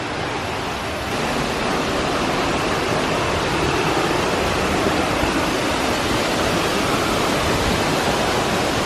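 Steady rushing of a large waterfall, a loud, even noise that grows a little louder about a second in.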